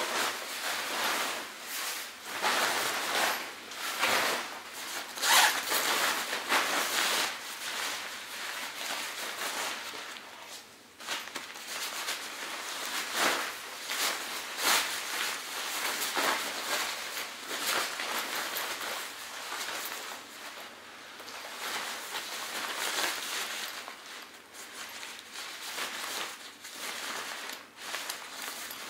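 Crinkly fabric of a SOL Escape Bivvy sleeping-bag cover, with a silver foil-like lining, rustling and crackling in irregular bursts as it is handled and opened out. Its zip is worked near the end.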